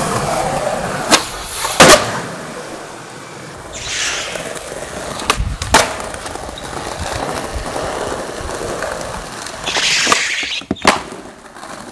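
Skateboard wheels rolling on concrete, broken by sharp cracks of the tail popping and the board slapping down on landings, several times over.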